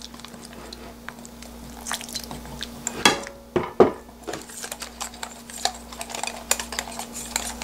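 Wire whisk beating a flour-and-egg batter in a glass mixing bowl, a fast run of clicks and taps of metal on glass. A few louder knocks come about three seconds in.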